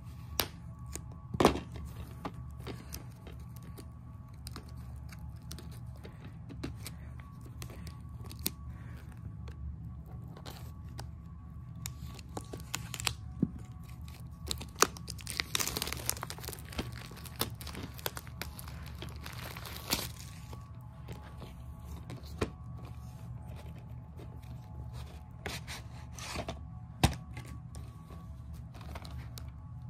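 Plastic shrink wrap being torn off a DVD box set: crinkling and tearing, busiest about halfway through, with several sharp clicks and knocks of the plastic case being handled. A steady low hum runs underneath.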